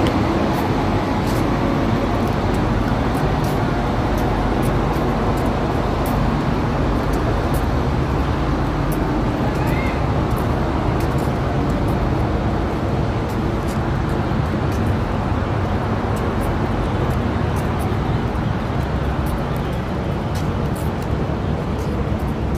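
Steady traffic and urban hubbub: a continuous low rumble with faint scattered clicks.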